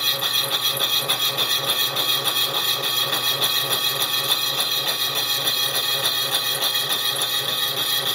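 A milling-machine slotting cutter with some teeth missing cuts into a soft brass part, making a lot of noise: a steady grinding rasp with fine, rapid chatter. The cutter is running backwards, so it rubs and scrapes through the brass rather than cutting cleanly.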